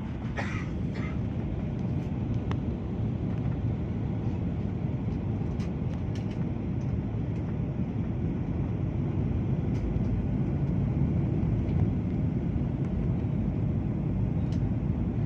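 Steady low rumble of an airliner in flight heard from inside the passenger cabin: engine and airflow noise, even throughout, with a few faint ticks.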